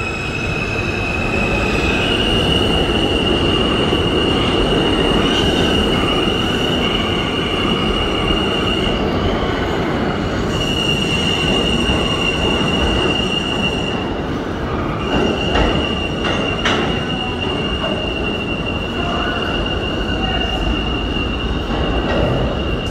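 R160 subway train pulling out of the station, its wheels giving a steady high squeal over the rumble of wheels on rail. The squeal breaks off briefly twice, and a couple of sharp clacks come about two-thirds of the way through.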